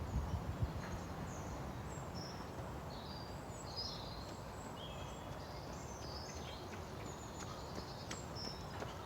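Birds chirping in short, high calls over a steady, low outdoor background rumble, with a few faint taps near the end.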